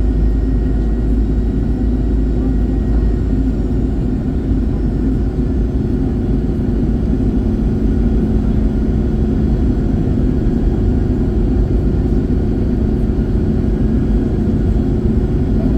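Steady cabin noise inside an Airbus A321: a deep rumble of engines and airflow with a constant droning hum, heard from a forward cabin window seat.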